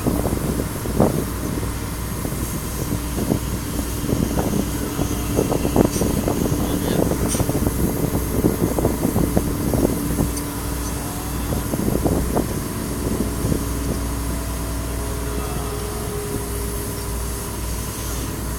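Heavy lifting machinery running steadily with a low engine hum, with scattered knocks and clanks. A low held tone sounds for several seconds in the middle.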